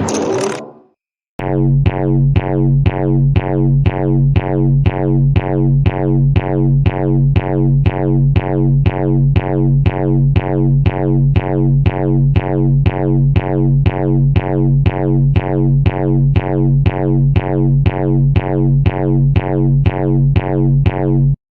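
Electronic railroad crossing warning bell ringing in an even, repeated 'kan-kan' about twice a second, each stroke struck sharply and dying away quickly, deep in pitch. It starts about a second in and cuts off suddenly near the end.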